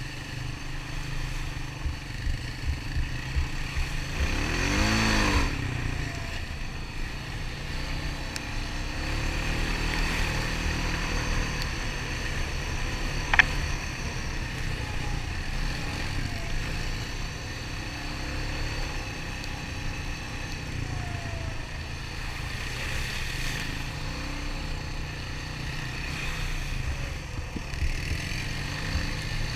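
ATV engine running steadily as it rides along, with a rise and fall in revs about five seconds in and one sharp click near the middle.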